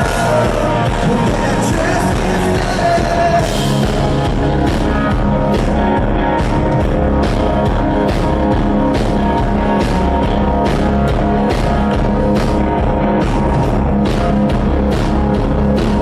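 Rock band playing live, with a drum kit keeping a steady beat under sustained guitar and keyboard-like chords.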